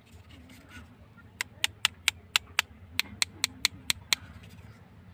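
A quick run of sharp clicks, about four or five a second, starting about a second and a half in and stopping around four seconds, over a faint steady low hum.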